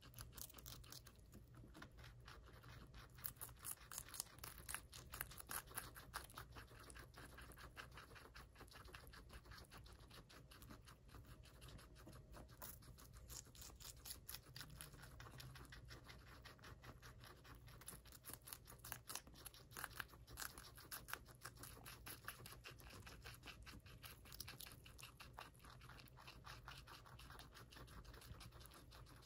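Two guinea pigs chewing raw red and yellow bell pepper chunks: a faint, rapid crunching of many small crisp clicks, coming in spurts.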